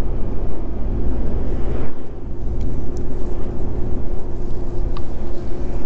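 A Renault semi-truck driving at steady speed, heard from inside the cab: a constant low rumble of diesel engine and road noise with a steady drone.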